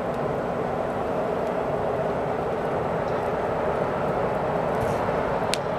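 Coal forge fire burning with a steady rushing roar and a faint steady hum beneath it, with one small pop near the end.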